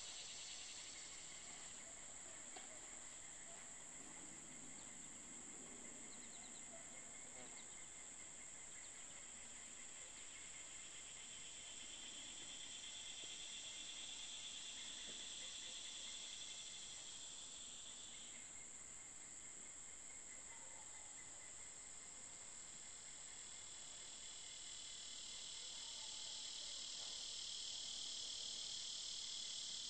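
Faint chorus of insects: a steady high-pitched buzz, joined by a lower buzzing chorus that swells up and dies away, loudest for several seconds mid-way and again near the end.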